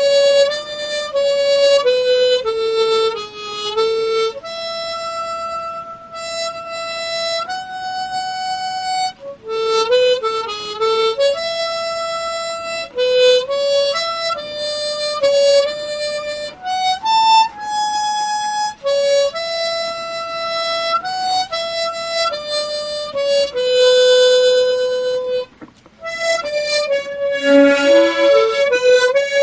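Harmonica playing a slow melody in long held notes, with broken chords woven in and a quick run of stepping notes near the end.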